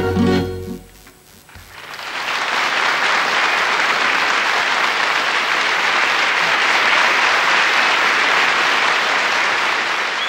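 A tamburica band's last notes die away, then a large audience applauds, the clapping swelling within a second or so into a steady, dense ovation.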